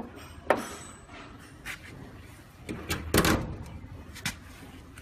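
A few sharp knocks and clicks as a metal water chiller and its small hose fittings are handled, the loudest cluster about three seconds in.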